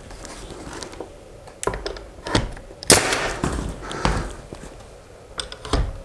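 Pneumatic nail gun firing nails into walnut door trim: several sharp shots about a second apart, the loudest near the middle, with a few more in quick succession near the end.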